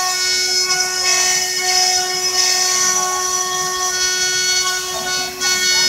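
CNC router spindle running at a constant high speed: a steady whine with many overtones.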